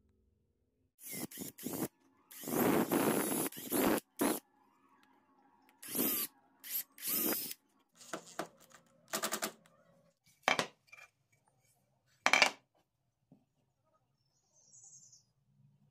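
Hand-held power drill running in several short bursts as it bores into the edge of a wooden disc, followed by a few brief, sharp knocks.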